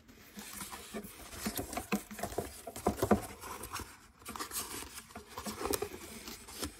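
Paper pages of a picture book being handled and turned by hand: a run of rustles, rubs and soft taps, busiest in the middle.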